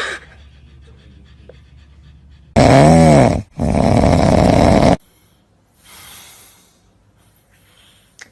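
A loud animal call rising and falling in pitch for about a second, then straight after it a harsh, noisy cry lasting just over a second.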